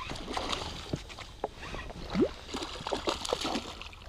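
Water splashing and sloshing around a small PVC inflatable rowboat while a hooked pike is played, with scattered knocks and clicks. A short rising squeak about two seconds in is the loudest sound.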